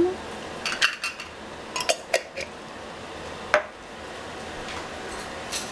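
Glass jam jar being handled, capped and set down on a tiled counter: a few separate sharp clinks and taps, the loudest about three and a half seconds in.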